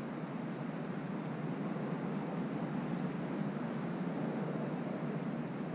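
Steady outdoor background noise with no distinct event, and a few faint high ticks around the middle.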